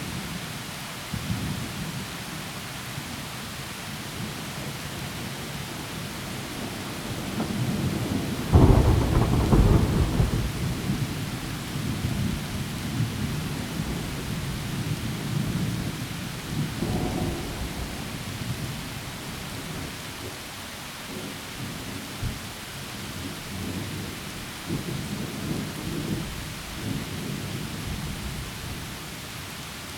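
Heavy rain falling steadily through trees, with rolling thunder. A loud thunderclap breaks in suddenly about a third of the way through and rumbles for a couple of seconds, and fainter rumbles follow on and off later.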